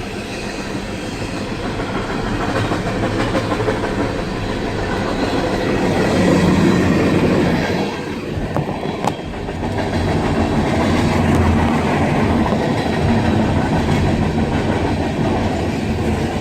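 Freight train cars rolling past close by, a heavy continuous rumble with wheels clacking over the rail joints, swelling and easing in waves.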